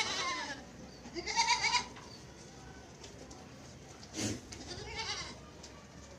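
Barbari goats bleating with a quavering, wavering voice. One call tails off at the start, a full bleat comes about a second in, then a short call and a softer one follow around four to five seconds in.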